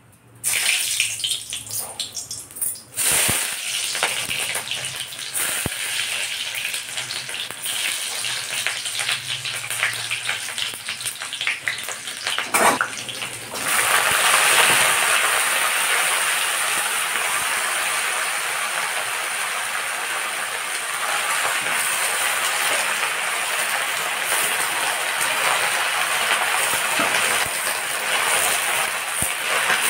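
Hot oil sizzling in a kadai, getting louder about halfway through as the leafy greens go in, then a steady sizzle of the greens frying.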